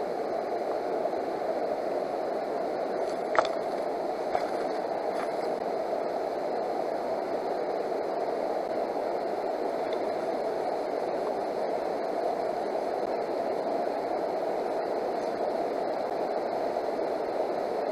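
Steady rush of a river flowing over a rocky riffle, with one sharp click a few seconds in.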